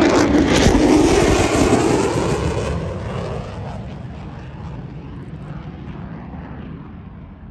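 F-35A Lightning II jet flying past, its engine noise loudest in the first couple of seconds, then fading steadily as it draws away.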